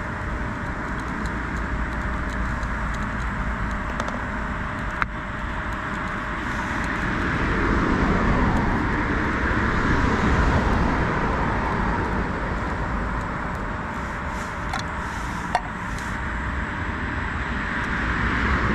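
Road traffic running steadily, with a car passing close by whose noise swells to its loudest about halfway through and then fades. Two brief sharp clicks, one about a third of the way in and one past the three-quarter mark.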